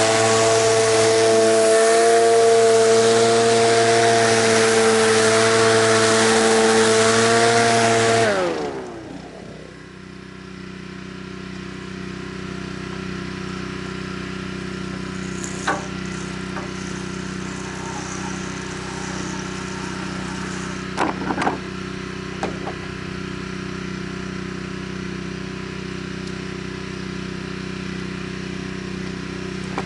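Gas-engine pressure washer running under load with its water spray hissing; about eight seconds in the spray stops and the engine's pitch drops, and it then keeps running steadily at a lower level, with a few short clicks.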